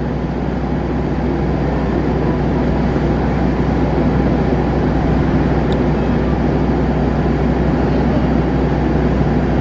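Diesel train engines rumbling steadily, a low hum with a broad rumble over it that grows a little louder as a KAI diesel-electric locomotive approaches.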